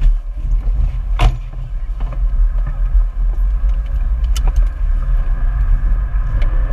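Off-road 4x4's engine running as the vehicle crawls over rough ground: a steady low rumble with scattered knocks and rattles, one sharp knock about a second in.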